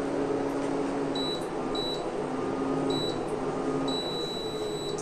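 Prestige PIC 6.0 V3 induction cooktop beeping: three short high beeps, then one long beep of about a second near the end, over a steady low hum from the cooker. The beeping comes while the display shows error code E9.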